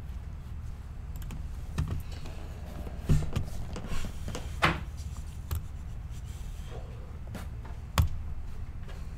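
A handful of scattered sharp clicks and knocks, irregularly spaced, over a steady low hum; the loudest come about three, four and a half, and eight seconds in.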